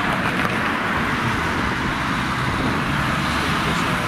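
Boeing 757-200 jet engines running steadily at taxi power as the airliner taxis and turns onto the runway: a steady hiss over a low rumble, with a low hum coming in and strengthening in the last second or so.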